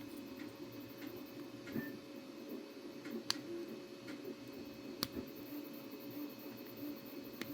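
Small 3D-printed plastic parts being handled as a peg is pushed into an arm joint: faint rubbing and fiddling, with two sharp plastic clicks about three and five seconds in, over a faint steady hum.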